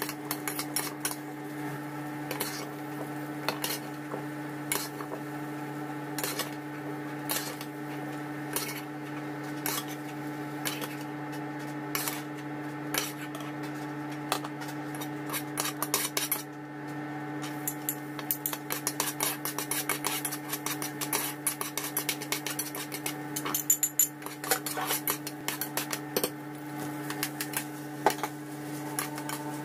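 A stainless steel spoon clinking and scraping against a granite-coated pot as food is stirred, in quick irregular clicks and knocks, with a brief lull about halfway through. A steady low hum runs underneath.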